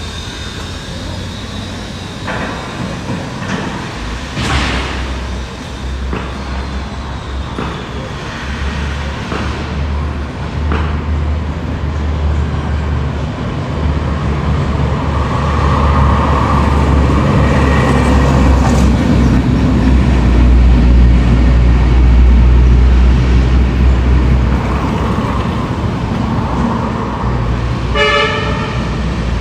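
Heavy vehicle engine rumbling, growing louder about halfway through, with a short horn blast near the end.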